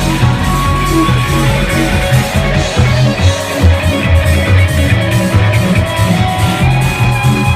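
A live rock band playing loud, dense, sustained music: electric guitar and bass guitar over drums, with keyboards.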